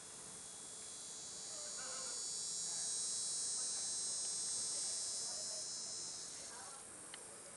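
Insect chorus outdoors: a high-pitched, many-toned drone that swells up over a few seconds and fades away again near the end.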